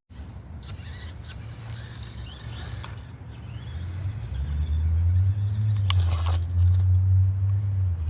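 FMS Smasher V2 RC monster truck driving, its electric motor whining as it speeds up, over a low rumble that grows louder about halfway through.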